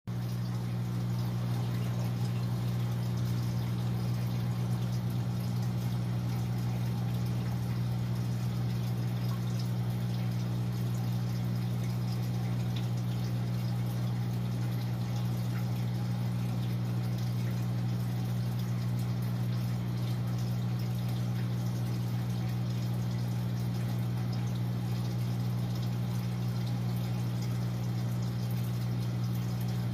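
Steady low hum of a running pump, with a faint trickle of water over it.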